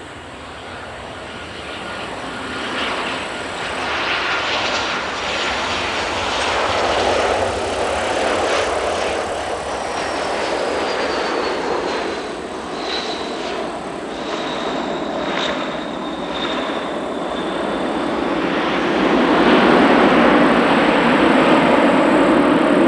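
Boeing 737-800's CFM56 jet engines as the airliner flies low past on landing and touches down, a steady jet roar with a high whine that falls in pitch as it passes. Near the end the roar grows louder and deeper as the aircraft rolls out on the runway.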